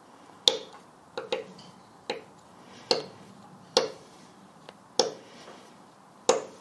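Sharp metallic clicks, about one a second, as a small hand screw clamp is wound by its sliding tommy bar to press a very tight-fitting plug into a bored hole.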